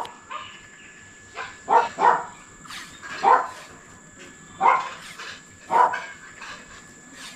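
Insulation tape being pulled off its roll and wound around a drilled metal clamp strip: a series of short rasps, about one a second, each pull a quick tearing unroll.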